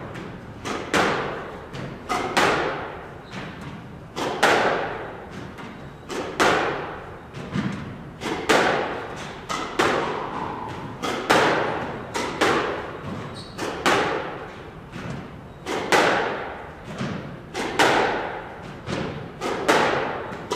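Squash ball struck back and forth with rackets and hitting the court walls in a steady rally. Sharp smacks come about once a second, often in quick pairs, and each one rings out in the echoing court.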